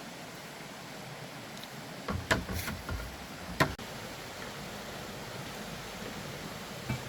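A steady hiss, with a short run of sharp knocks and clatter about two seconds in; the two sharpest knocks come about a second apart, and there is one faint knock near the end.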